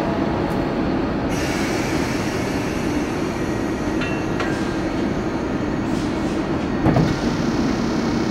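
Class 362 electric locomotive standing at the head of its train, running with a steady hum and whir from its equipment.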